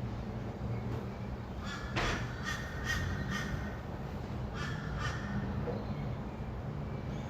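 A bird gives a run of about five harsh, rasping calls about two seconds in, then two more about a second later, over a steady low hum of distant traffic.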